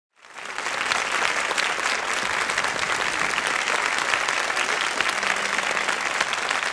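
Audience applauding: dense clapping that fades in over the first second and then holds steady.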